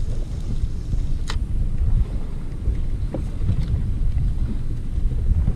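Wind rumbling on the microphone aboard a small boat at sea, a low uneven rumble, with one brief high tick about a second in.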